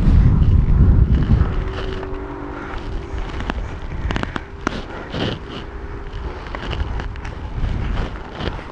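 Airsoft guns firing: scattered sharp cracks, several in quick succession about three and a half to five seconds in. Wind buffets the microphone at the start.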